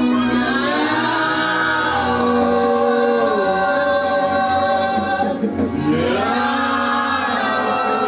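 A choir singing a sustained gospel hymn, voices holding long notes and sliding between them, with a short break about five and a half seconds in.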